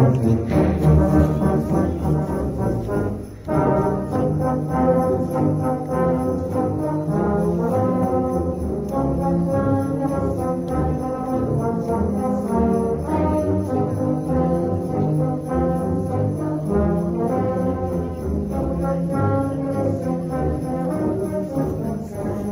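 A massed choir of tubas and euphoniums playing a Christmas carol in harmony, with full, sustained chords and a brief break between phrases about three and a half seconds in.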